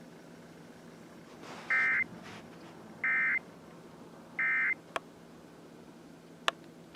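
Emergency Alert System end-of-message signal: three short bursts of warbling digital data tone, a little over a second apart, marking the end of the alert broadcast. Two sharp clicks follow near the end.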